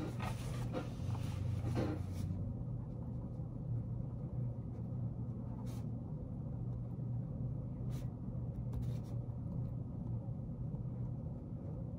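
Pen writing and rustling on paper, with a steady low hum underneath. A few light clicks come later on.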